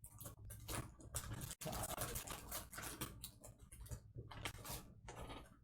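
Quiet, irregular rustling, scratching and crinkling of a sealed trading-card hobby box's plastic wrap and cardboard as it is opened by hand.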